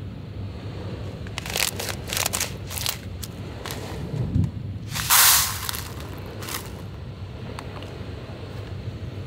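Plastic packaging of a self-heating meal kit being handled: crinkling and small clicks, a low thud about four seconds in, then a louder rustling rip lasting under a second about five seconds in.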